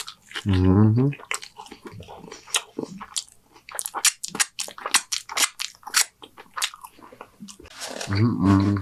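Close-miked mouth sounds of a man eating a cheeseburger: a bite at the start, then wet chewing and finger-licking smacks as a dense run of short clicks. A low wordless hum comes about half a second in and another near the end.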